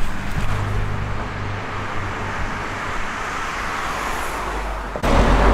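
Road traffic: a car driving past, its tyre and engine noise swelling and then fading, cutting off suddenly about five seconds in.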